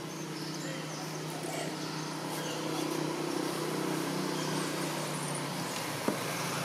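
A steady low engine hum, like a vehicle running, with a single sharp click about six seconds in.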